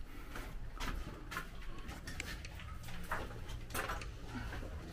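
Irregular light knocks and clicks, about one a second, from people handling gear and moving about.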